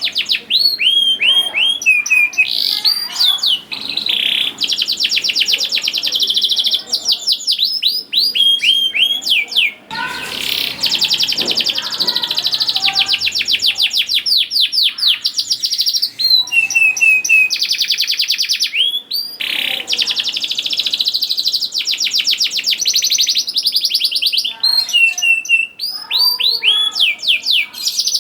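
Domestic canary singing a long, continuous song of fast high trills and rolls, with runs of quick downward-sweeping chirps.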